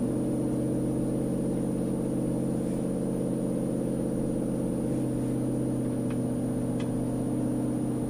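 A 2004 Nissan Titan's 5.6-litre V8, running through JBA long-tube headers and an aftermarket cat-back exhaust, heard from inside the cab while driving. The exhaust drone comes up right at the start and holds one steady pitch at a constant engine speed.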